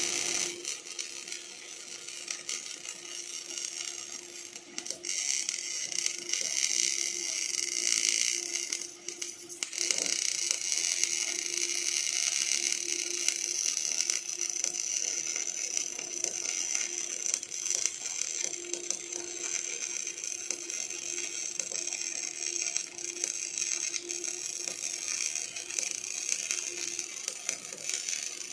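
OTC welding robot arc welding: a steady crackling hiss from the arc with a low steady hum under it, dipping briefly about nine seconds in before carrying on.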